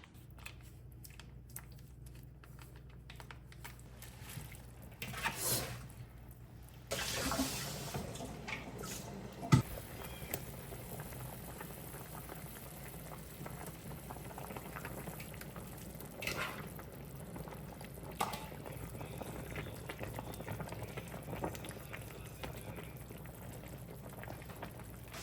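Water sounds in a kitchen during cooking. A steady watery hiss sets in about seven seconds in, a sharp knock of cookware comes a few seconds later, and a few lighter clinks follow.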